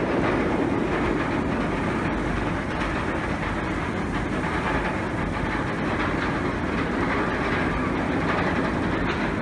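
Amusement-ride train running along its rails: a steady rumble of wheels on track.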